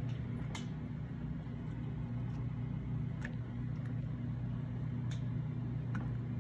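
A steady low machine hum, with a few faint light taps as raw potato slices are laid by hand into a crock pot.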